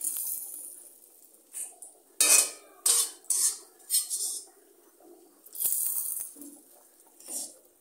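A metal spatula scraping and knocking against a metal wok (kadai) in several short, sharp strokes, scooping out the last of the fried garlic and dried-chilli tempering. A brief hiss at the very start as the hot oil tempering meets the dal.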